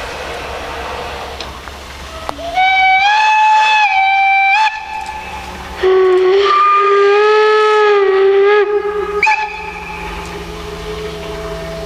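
Steam locomotive whistle: two long blasts, the second on a lower note than the first, then a short toot.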